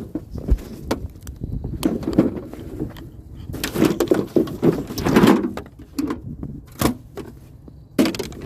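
Irregular knocks, clatter and scraping as scrap items are handled and pulled about, with sharp clicks near the end.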